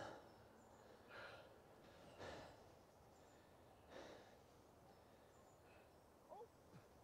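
Near silence broken by three soft exhaled breaths, sighs of a person resting, spread over the first four seconds. Faint bird chirps start near the end.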